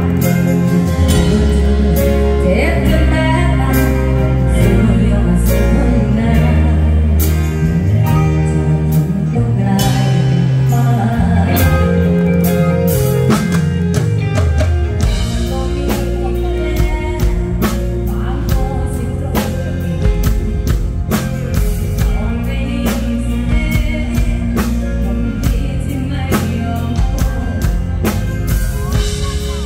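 Live band playing a luk thung (Thai country) song over a PA: drum kit, electric bass and electric guitar. The drumming gets busier about halfway through.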